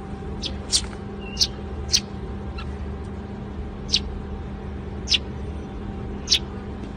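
A pet bird giving short, sharp, high-pitched chirps, about eight of them at irregular intervals, over a steady low hum.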